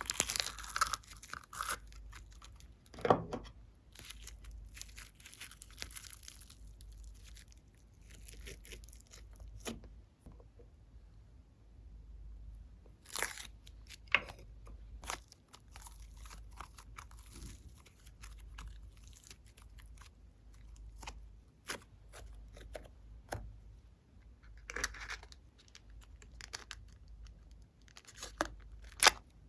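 Slime being worked by hand, squeezed, stretched and pulled apart, giving irregular sticky crackles, pops and tearing sounds with a few louder snaps.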